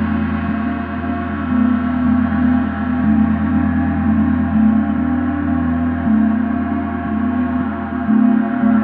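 Paiste symphonic gong being played continuously with soft felt mallets: a sustained wash of many overlapping tones that swells and eases, renewed by soft strokes about twice a second.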